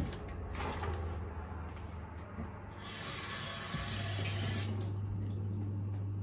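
Kitchen mixer tap turned on and running into a stainless steel sink for about two seconds, starting near the middle, as hands are rinsed under it. A steady low hum runs underneath.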